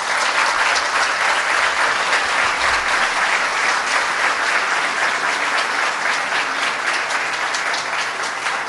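Audience applauding, a steady dense clapping that eases off a little near the end.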